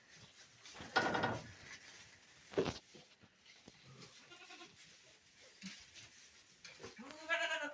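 Goats bleating: one long call about a second in, a short one a little later, and another call near the end.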